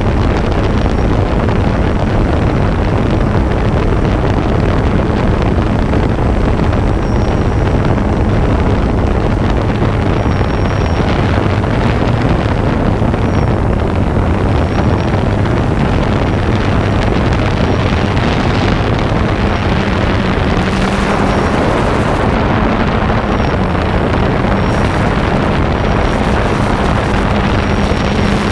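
A camera drone's electric motors and propellers whirring steadily in flight, with wind rushing over the microphone.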